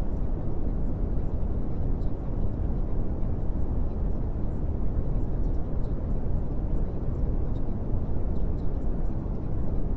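Steady low rumbling noise with faint, scattered crackles on top.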